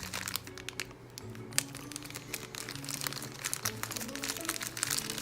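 Plastic blind-bag packaging crinkling and crackling as it is cut and pulled open. There is one sharp snap about a second and a half in, over steady background music.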